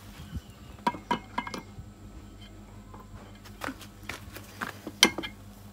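Steel gearbox gears of a Modenas Kriss engine clinking as a gear cluster is slid onto its shaft and seated in the crankcase: a scatter of light metal clicks, the loudest about five seconds in.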